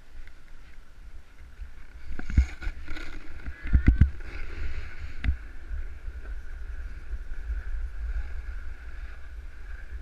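Snowboard sliding and scraping over snow, with wind rumbling on the body-worn microphone. A cluster of sharp knocks about two to four seconds in, with one more a second later.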